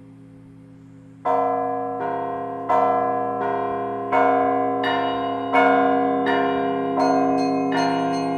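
Russian Orthodox church bells ringing: a faint lingering hum, then a strong stroke about a second in, followed by repeated strokes with long ringing overtones, roughly one to one and a half seconds apart. Smaller, higher-pitched bells join with quick strokes about seven seconds in.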